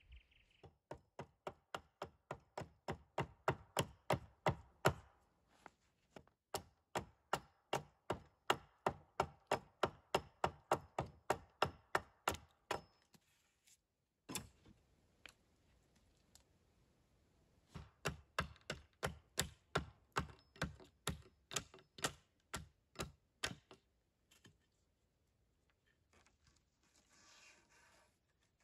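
Rapid chopping strikes on wood, about three to four a second, in several bursts with short pauses between them.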